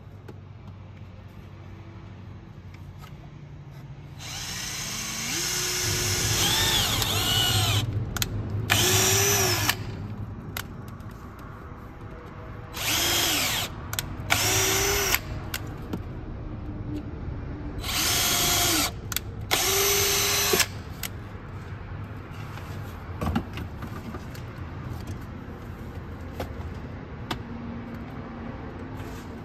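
Ingco cordless drill boring holes into a car engine's intake manifold for CNG gas injector nozzles. It runs in six or seven short bursts, its whine rising and falling in pitch as the trigger is squeezed and let go.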